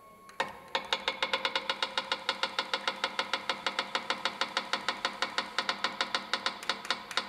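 Diamond dresser on the Photomaster tool head tapping the surface in a test run. A single tap comes first, then a fast, even series of taps, several a second, each with a short metallic ring, stopping near the end.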